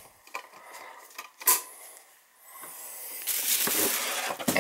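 Scattered light clicks and one sharp knock, then a rustling hiss that swells from about three seconds in: handling noise and footsteps from someone carrying a handheld camera through a dark doorway.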